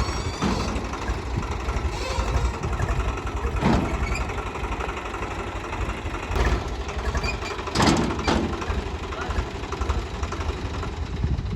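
Heavy diesel engine running steadily, with several sharp clanks scattered through.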